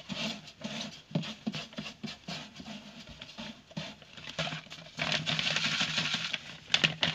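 Granular aquarium substrate poured from a plastic sachet onto the glass bottom of an empty tank: a scattered patter of falling grains, turning into a steady hiss of pouring about five seconds in.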